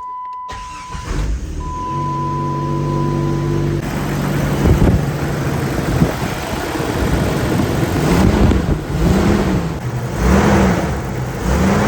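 1997 Jeep Grand Cherokee's engine starting, with a dashboard chime sounding at first. It then runs loudly and is revved up and back down about four times near the end.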